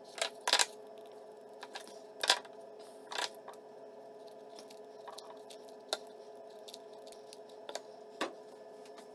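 Plastic spring clamps clicking and knocking against a wooden mouse shell as they are opened and fitted on: a scattering of sharp clicks over a faint steady hum.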